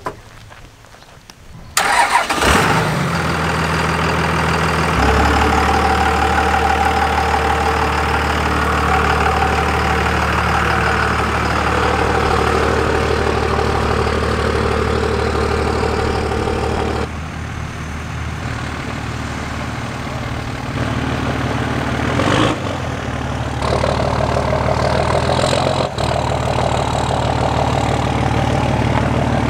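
Cummins turbo-diesel engine in a Dodge Ram pickup running with a low, steady note. It cuts in suddenly about two seconds in, shifts a few times, and flares briefly about three-quarters of the way through.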